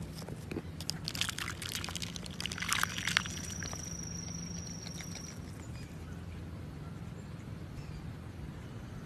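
A duck dabbling its bill in a plastic cup of water: a quick run of wet clicks and splashes in the first three seconds, then a quieter stretch. A thin steady high whistle sounds for a few seconds in the middle.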